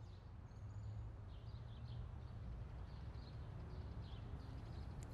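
Faint outdoor park ambience: scattered distant birds chirping over a low steady hum.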